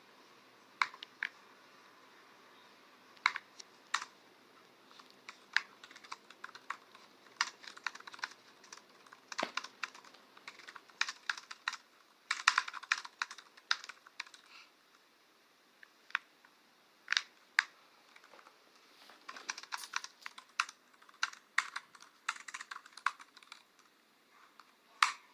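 Typing on a computer keyboard: irregular keystrokes, a few seconds apart at first, then quicker runs of keys about halfway through and again later, with short pauses between.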